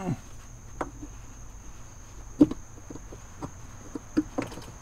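Hands reconnecting the battery under a Mercedes Sprinter van's driver seat: a few scattered clicks and knocks of the cable and connector, the loudest about halfway through, over a steady high whine.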